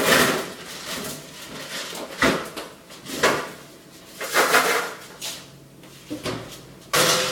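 Kitchen handling noise: about half a dozen separate knocks and clatters, a second or so apart, with quieter rustling between.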